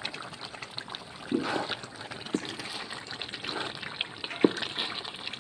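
Thick, oily halwa being stirred with a wooden spatula in an iron karahi: wet sloshing and sizzling swishes with each stroke, and two short knocks. The halwa is nearly done.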